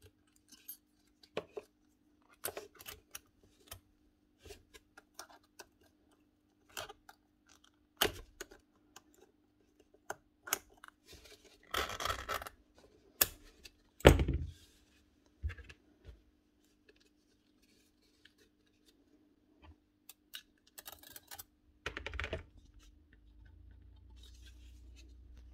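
Hand assembly of rotary-hammer parts: scattered clicks, taps and scrapes of small metal parts being handled and fitted, with a short scrape and a louder knock about halfway through and another short scrape near the end, over a faint steady hum.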